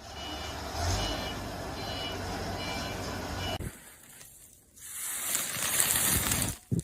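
Vehicle noise with a low hum and short repeated beeps; about three and a half seconds in it cuts off, and a steady high hiss follows.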